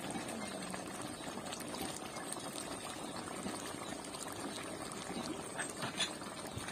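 Chicken curry bubbling steadily at a boil in a wide wok, with a light tap near the end.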